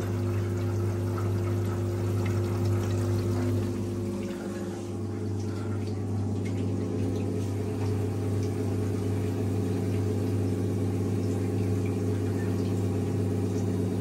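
Drain pump of an old Whirlpool front-loading washing machine running with a steady hum, water rushing through it as the machine drains.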